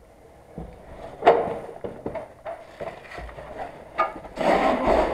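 A handful of sharp knocks and clicks, the loudest just over a second in and another about four seconds in, then a steady rustle of handling or movement noise near the end.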